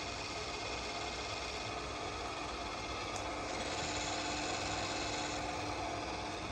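Csepel RF 50/1600 radial arm drill running with its spindle on power feed at an increased feed rate: a steady mechanical hum with a few steady tones, growing slightly louder and hissier for a couple of seconds in the middle.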